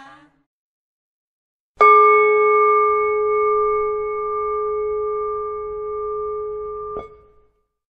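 A prayer bell struck once about two seconds in, ringing a clear steady tone with several higher overtones for about five seconds before it is stopped short.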